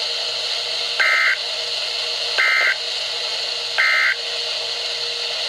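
NOAA Weather Radio's EAS SAME digital data sent three times, the end-of-message code that closes the alert: three short two-tone warbling bursts about a second and a half apart, over a steady radio hiss.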